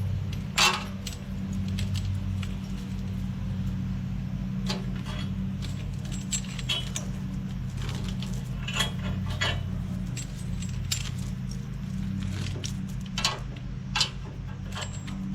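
Steel chain clinking and rattling as it is unwrapped from a fence post, in scattered sharp metallic clinks, over a tractor engine running steadily.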